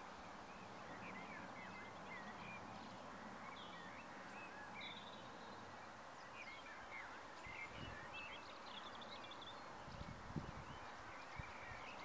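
Faint birdsong: many short chirps and whistles from several birds, scattered over a steady background hiss, with a few soft low thumps near the end.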